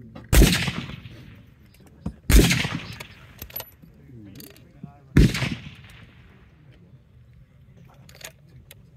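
Three rifle shots on a range, each a sharp loud report that trails off into a short echo, the second about two seconds after the first and the third about three seconds later.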